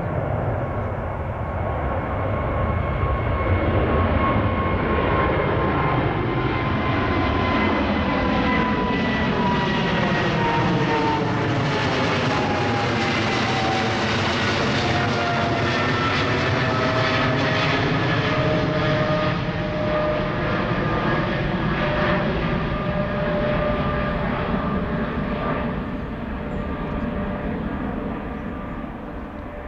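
Boeing 777-300ER's twin GE90-115B turbofans at climb power just after takeoff, passing overhead. A loud, steady jet rumble carries a whine that falls in pitch as the aircraft goes by, and the sound fades near the end as it climbs away.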